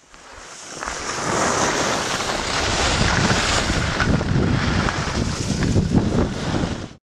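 Wind buffeting the microphone, mixed with the hiss of skis sliding on snow. It swells over the first second or so, runs on loudly, and cuts off abruptly near the end.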